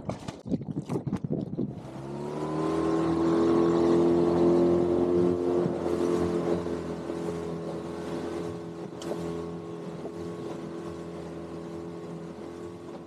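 A dinghy's outboard motor revs up about two seconds in, after a few knocks, then runs steadily at cruising speed.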